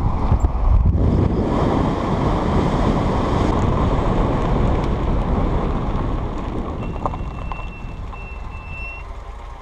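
Car driving along a rough dirt track: a steady low rumble of engine and tyres, with wind buffeting the microphone, easing off somewhat in the last few seconds. A faint thin high whistle sounds for about two seconds near the end.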